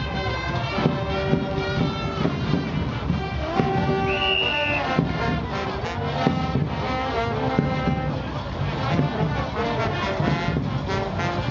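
Music led by brass instruments, with a quick beat of drum hits and a short, high, held note about four seconds in.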